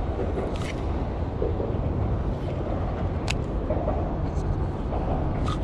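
Steady low rumble of road traffic crossing the concrete bridge overhead, echoing underneath, with a few faint clicks.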